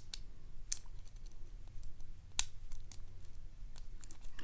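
Lock pick and tension wrench working the pins of a Papaiz Euro padlock: faint metallic scratching in the keyway with a few sharp clicks scattered through, as pins are lifted and set.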